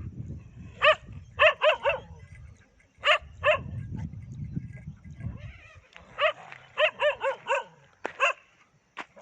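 Dogs barking in short sharp clusters, a few barks close together, then a pause, then a quicker run of barks near the end: a farm guard dog facing off with stray dogs. A low rumble sits under the first half.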